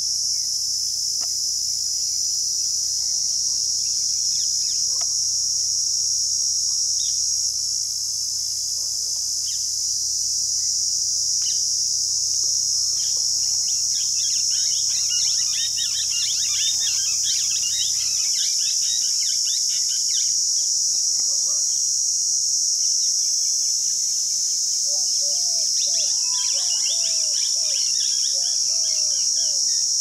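Cicada calling: a loud, steady, high-pitched buzz that never breaks. Small birds chirp over it from about 13 to 20 seconds in and again near the end, where lower repeated calls also come in.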